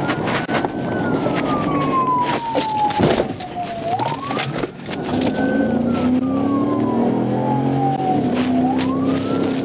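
Police car siren on a wail, rising quickly and falling slowly about every four and a half seconds, over the pursuing patrol car's engine and road noise, with scattered knocks.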